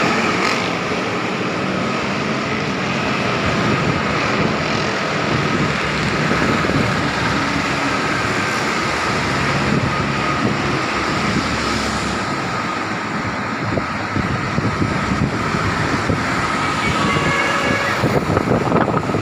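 Strong wind rushing over the microphone, mixed with road traffic noise. The sound is steady and unbroken throughout.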